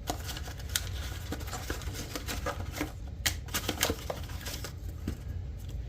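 A package being handled and opened by hand: irregular crackling, rustling and small clicks of packaging, with a few louder snaps about three to four seconds in.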